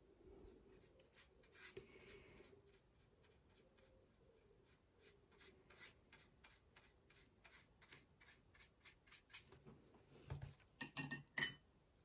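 Faint scratchy strokes of a fine paintbrush on watercolour paper, with a few louder clicks and knocks near the end.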